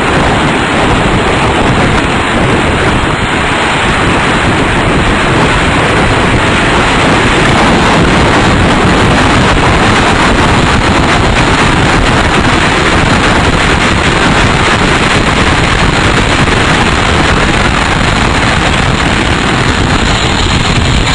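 Tornado wind blowing hard across a microphone at ground level: a loud, steady rushing noise with no let-up, thick with wind buffeting.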